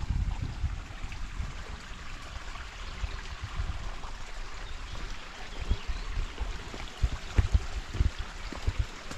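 Running water, a steady rushing hiss, with low knocks and thumps in the second half.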